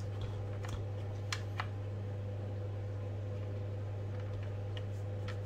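A few light clicks and taps of a screwdriver and fingers on the plastic chassis of an RC truck, the sharpest about a second and a half in and a couple more near the end, over a steady low electrical hum.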